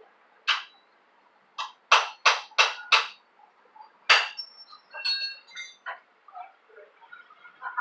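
Sharp metal-on-metal strikes, about seven in all, four of them in a quick run of about three a second, each with a short metallic ring. Lighter metal clinks follow.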